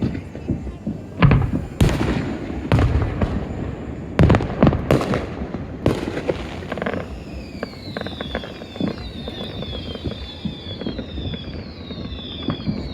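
Fireworks bursting: a quick string of sharp booms and bangs, followed from about halfway by a run of repeated falling whistles over scattered smaller pops.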